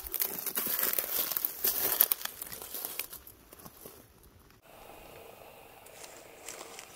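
Dry leaf litter and brush crunching and crackling underfoot in an irregular run for about the first three seconds, then dying away to a faint background.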